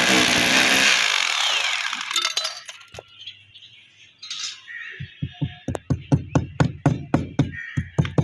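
Electric hammer drill boring into a concrete roof, winding down and stopping about two seconds in. From about five seconds in, a hammer strikes repeatedly on the concrete, about three blows a second.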